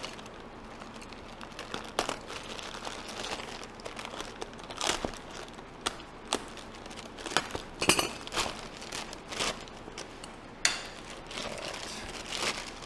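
A plastic bag crinkling and rustling as it is slit with a utility knife and pulled open by hand, with irregular sharp crackles scattered through.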